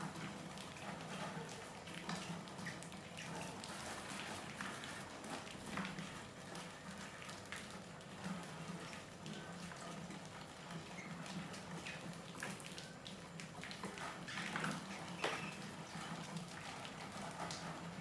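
Many rats scurrying and clambering around a plastic bucket trap, their claws making a steady stream of small scratches and ticks.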